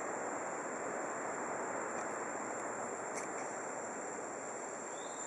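Steady outdoor ambience: an even rushing noise with a constant high-pitched insect drone over it, and no monkey calls.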